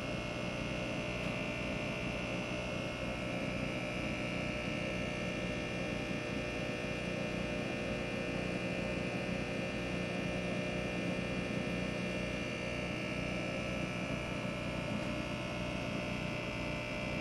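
Steady mechanical drone of a running motor, a constant hum with several fixed tones and no change in speed.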